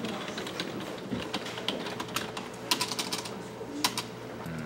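Computer keyboard being typed on: quick, irregular key clicks, with a few sharper keystrokes near the middle.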